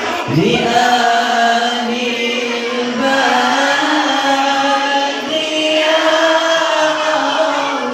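A group of voices chanting together in unison, holding long notes that change pitch every second or so.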